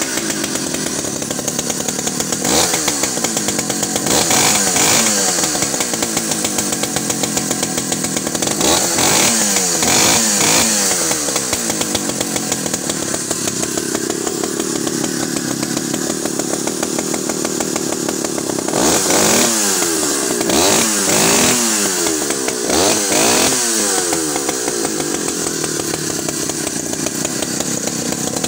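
Alpina 070S vintage two-stroke chainsaw engine running after a cold start, revved up and down repeatedly in bursts of throttle, with a spell of steadier running in the middle.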